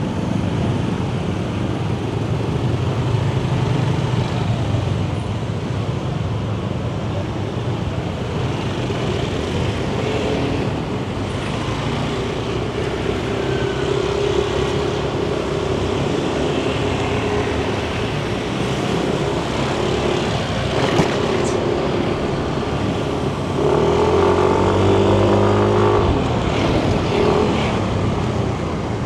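Yamaha Nmax 155 scooter's single-cylinder engine running while riding in traffic, with road and wind noise. About 24 seconds in, a louder engine note with a steady pitch rises for a couple of seconds, then drops off sharply.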